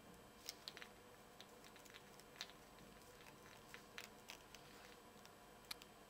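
Faint handling noise from a nylon Pintail IP68 circular connector: a few scattered small clicks and rubs as fingers twist its threaded plastic coupling ring.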